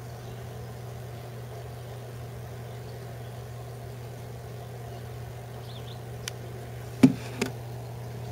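A steady low hum, with a light click about six seconds in and two knocks about a second later, the first of the two the loudest.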